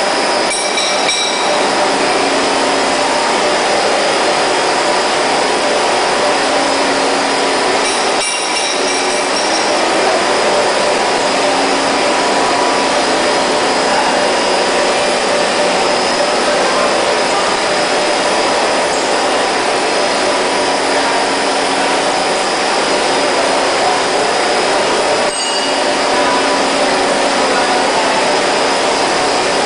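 Fish feed extrusion processing line running: a loud, steady machine drone with several held tones.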